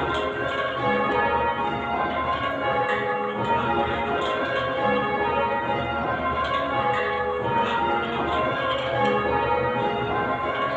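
A ring of eight Whitechapel-cast church bells, tenor about 10 cwt in A flat, rung full-circle in call changes: a continuous, even succession of bell strokes, each ringing on into the next.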